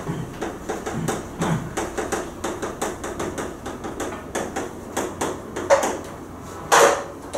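Chalk tapping and scraping on a chalkboard as characters are written: a string of short, irregular sharp taps, with one louder clack near the end.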